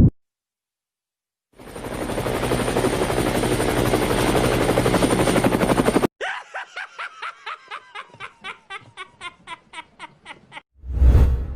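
A run of editing sound effects: a dense, rapid rattle building in loudness for about four and a half seconds and cutting off abruptly, then a train of short pulses at about five a second slowly fading, and a short deep boom near the end.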